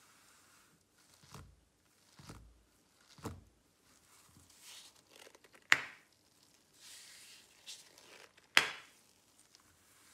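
Nitrile-gloved hands tapping and rubbing on a rubber coin-pattern mat: three soft thumps, then rustling with two sharp clicks about three seconds apart.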